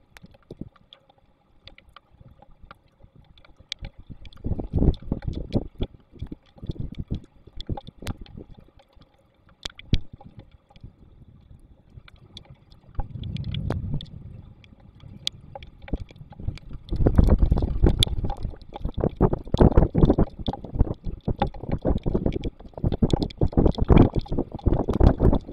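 Storm wind buffeting the nest camera's microphone in gusts, strongest in the last third, with scattered sharp ticks of raindrops and a low rumble about halfway through.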